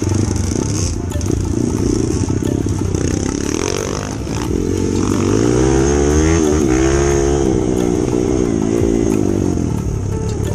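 Kawasaki KLX dirt bike's single-cylinder four-stroke engine running under way, its pitch rising and falling several times about halfway through as the throttle is opened and eased off.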